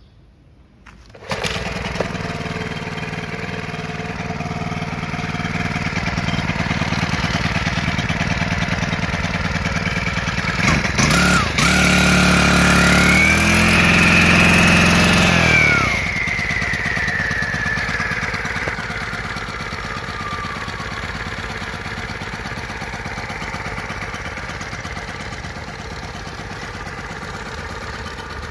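Makita EK7651H four-stroke power cutter engine starting about a second in, then running steadily. It is revved for a few seconds near the middle, with a whine that rises and then falls slowly as it settles back to a steady idle.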